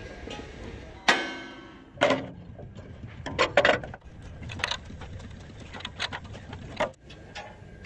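Irregular metal knocks and clanks on a steel truck chassis frame, about seven strikes. The loudest, about a second in, rings on briefly like struck steel.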